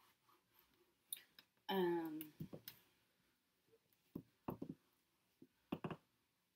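Handheld eraser wiping a whiteboard: quiet, with a handful of short taps and knocks from the eraser against the board. About two seconds in comes a brief pitched sound that falls in pitch.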